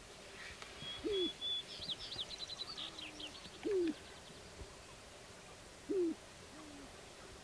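Male sharp-tailed grouse cooing in courtship display on a lek: three short, falling hoots about two and a half seconds apart, with softer, level coos between them. These are the calls made with the inflated purple neck sacs.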